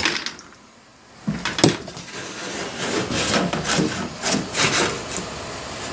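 Thin aluminum soffit sheet being handled and slid over wood, with irregular rubbing and scraping and a sharp knock about a second and a half in.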